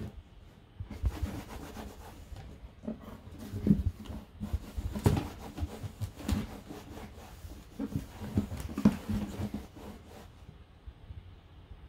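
A cotton cloth rubbing over a wooden tabletop in irregular strokes while a Miniature Pinscher grabs at it, with scuffs and a few sharper knocks of paws on the wood.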